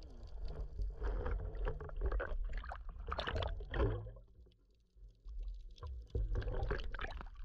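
Sea water lapping and sloshing irregularly at the surface, over a low rumble. The sound drops out for about a second midway.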